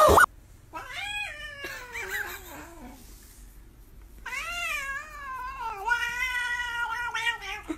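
A tabby cat gives two long, drawn-out yowling meows while a hand scratches its back: the first falls in pitch, the second rises and then holds for about three seconds. A brief loud snatch of another sound cuts off at the very start.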